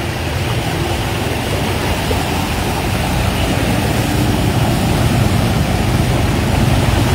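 Motor scooters and a small SUV driving through floodwater about 10 to 15 cm deep, their tyres churning and splashing the water over the engine noise. The splashing grows louder toward the end as a scooter passes close.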